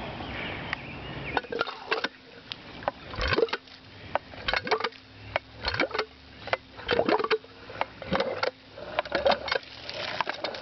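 Dempster No. 2 cast-iron pitcher pump being worked by hand: clunks and clicks from the handle and plunger, coming in clusters about once a second.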